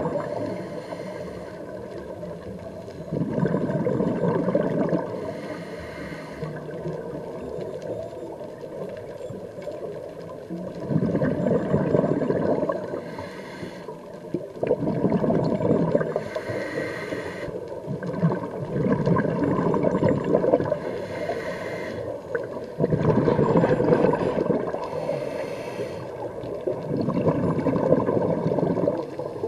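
Scuba diver's regulator breathing heard underwater: a gurgling rush of exhaled bubbles every four seconds or so, with shorter hissing inhalations between.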